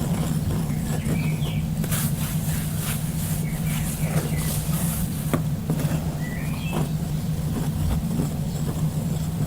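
Nature ambience: birds chirping in short calls now and then over a steady low hum, with a few brief soft rushes of noise.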